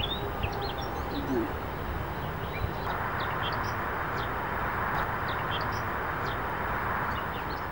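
Outdoor ambience: many small birds chirping over a steady background hiss, which gets denser about three seconds in.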